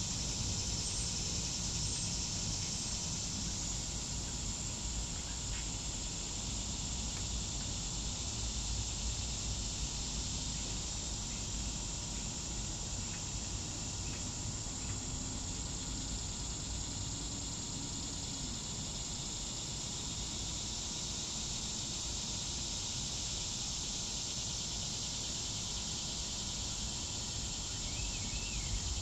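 Steady, high-pitched drone of insects in the trees, unchanging throughout, over a low rumble.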